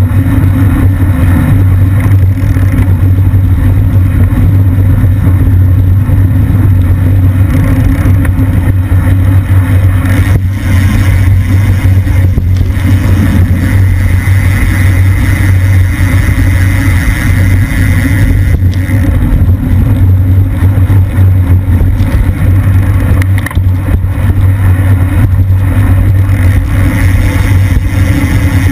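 Wind buffeting the microphone of a camera on a road bike at race speed: a loud, steady low rumble with rushing noise above it.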